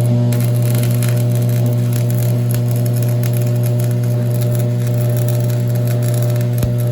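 Electric welder at work: a loud, steady electrical hum with the crackle of the welding arc over it. A single low thump comes near the end.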